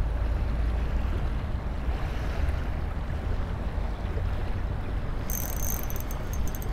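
Steady wind noise on the microphone over lapping bay water, with a brief high-pitched rattling about five seconds in.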